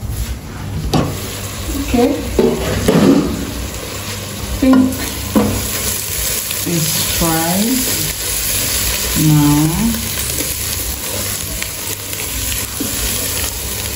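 Food sizzling as it fries in a hot pot, with steady hissing and the scrape and knock of stirring.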